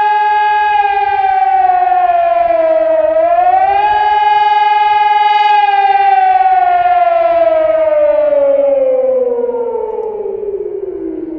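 HELIN HES 1800 electronic civil-defence siren sounding the rising and falling public warning tone. The pitch climbs and holds, dips, climbs again about three seconds in, then falls slowly and steadily as the signal winds down near the end.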